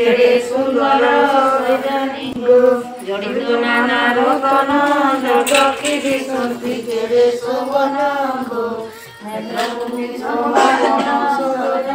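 Women chanting a devotional hymn together in unison, in long drawn-out phrases, with a short break about nine seconds in.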